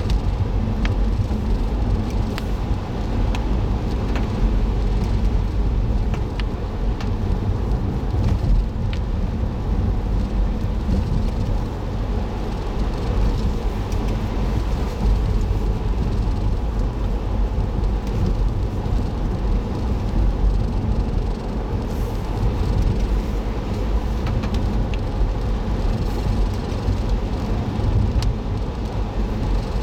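Car driving on a mountain road, heard from a dashboard recorder inside the cabin: a steady low engine and tyre rumble, with a few faint ticks scattered through it.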